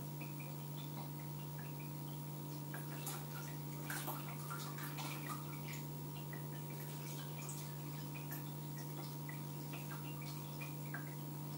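Strawberry moonshine infusion poured slowly from a large glass jar onto gauze over a sieve: faint trickling with scattered small drips and soft ticks, over a steady low hum.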